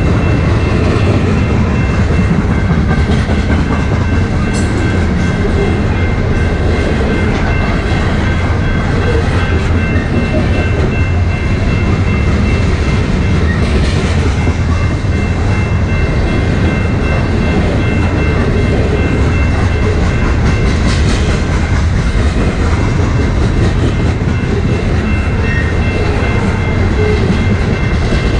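Coal train cars rolling past at speed: a steady, heavy rumble with the wheels clicking over the rail joints now and then. A faint, thin, high squeal holds steady from the wheels on the rail.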